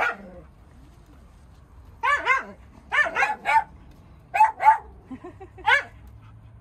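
High-pitched barks from small dogs playing rough, in quick clusters of two to four short barks, about a dozen in all.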